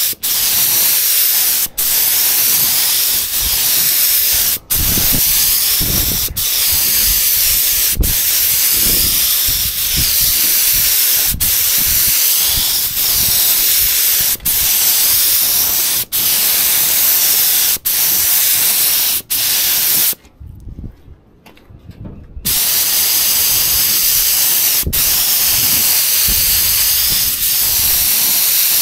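Paint spray gun spraying epoxy primer: a steady hiss in repeated passes, cutting off for an instant between strokes and pausing for about two seconds near the twenty-second mark.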